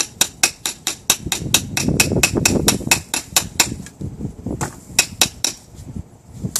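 Hammer tapping a steel pin into a new drum brake shoe, driving it down until its ring touches the shoe. The sharp metal taps come quickly and evenly, about five a second, then stop briefly, and a few more taps follow.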